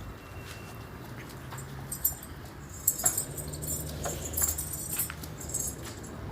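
Goats moving about in their pen: scattered clicks and light metallic jangling over a low steady hum.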